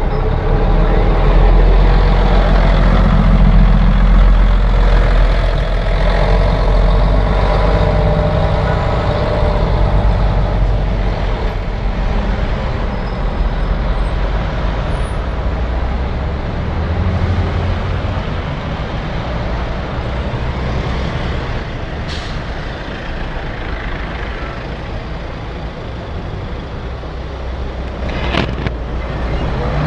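Military vehicle's engine running steadily close by, a low sound with a slight hum that slowly eases. Two short sharp cracks come near the end.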